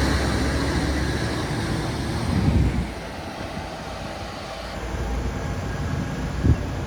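Liebherr LTM 1750-9.1 nine-axle mobile crane on the move, its diesel engine and running gear rumbling. The rumble falls away sharply about three seconds in and carries on quieter, with a single knock near the end.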